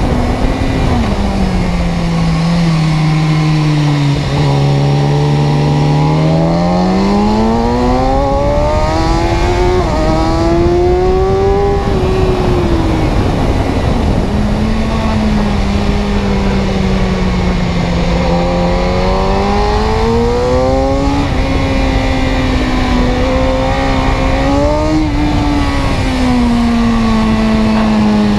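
Vehicle engine running continuously, its pitch sliding slowly down, up and down again as engine speed changes, falling in the first few seconds, peaking about twelve seconds in, then rising and falling more gently.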